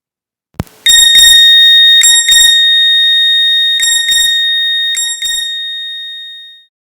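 A ringtone from a fake Nokia N1202 phone: a bright bell-like tone held at one pitch, broken by quick clusters of short beeps, fading out near the end. It is preceded by a single click a little over half a second in.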